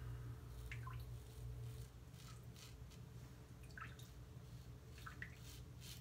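Old Superior Lather Catcher safety razor scraping through lathered beard stubble in a handful of short, faint strokes, over a low steady hum.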